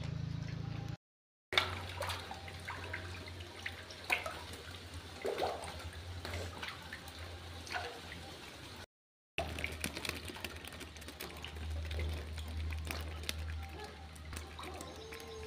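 Water splashing and dripping in scattered small clicks and splashes as wet fish fingerlings are handled, over a steady low hum. The sound cuts out completely twice, briefly.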